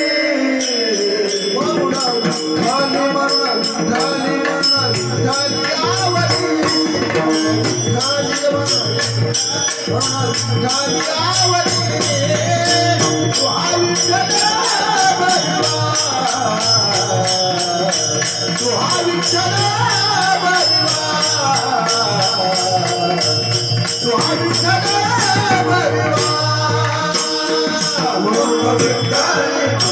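Marathi devotional bhajan music: a sung melody over a steady held drone, with fast, even jingling percussion and a pulsing low drum beat.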